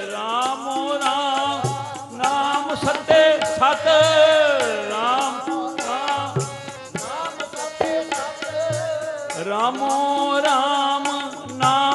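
Sikh kirtan: a voice singing a devotional melody with long gliding notes, over a harmonium's held chords and a tabla's steady rhythm of sharp treble strokes and deep bass strokes.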